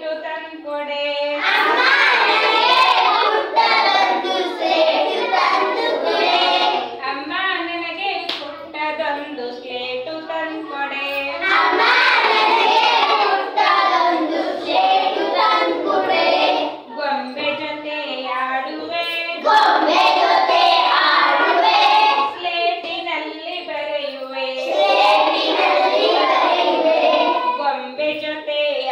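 Schoolchildren singing a Kannada action rhyme in chorus with their teacher, with occasional hand claps.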